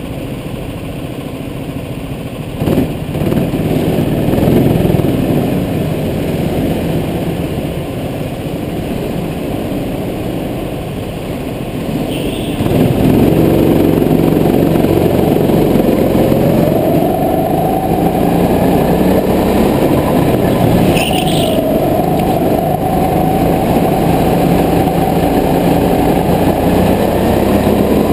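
Go-kart engine heard from the driver's seat, running steadily at first and then getting louder as the kart accelerates. Its pitch rises and falls through the corners, with two brief high squeals along the way.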